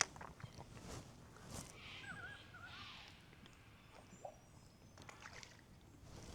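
Quiet outdoor ambience with a bird giving a short run of dipping chirps about two seconds in, and a few faint clicks.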